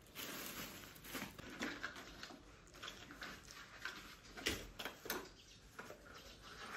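Plastic packaging rustling and crinkling as a new plastic baby walker is unwrapped and handled, with light clicks and knocks from its plastic parts; the sharpest knock comes about four and a half seconds in.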